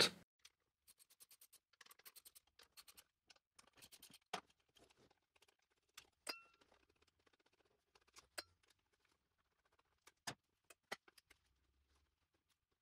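Near silence broken by a handful of faint, sharp metallic clicks and clinks from a 10 mm socket wrench being worked on the ECU's hold-down bolts, one of them ringing briefly about six seconds in.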